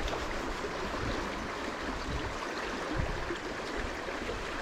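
Shallow river flowing steadily over stones and gravel.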